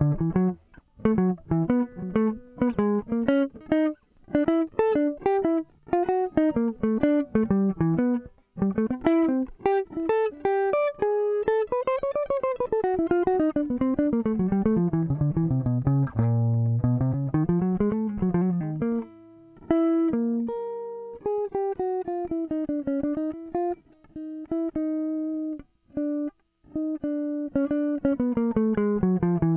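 Electric guitar played clean through a breadboard audio compressor: a run of quick single picked notes, with notes sliding up and down in pitch in the middle.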